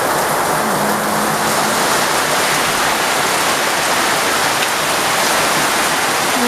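Steady heavy monsoon rain pouring down, a dense even hiss of falling water. A faint low hum comes in briefly about a second in.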